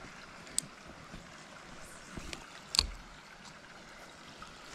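Trout stream water running steadily, with a few short sharp clicks, the loudest nearly three seconds in.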